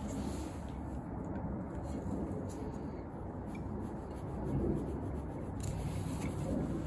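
New plastic LA660003 inducer fan wheel being handled and slid onto the motor shaft with gloved hands: soft rubbing with a few light clicks, over steady low background noise.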